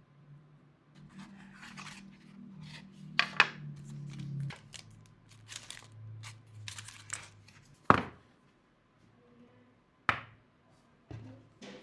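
Mouse packaging being opened by hand: rustling, scraping and tearing of box and wrapping over the first seven seconds or so, then a few sharp knocks, the first and loudest about eight seconds in, more near ten and eleven seconds.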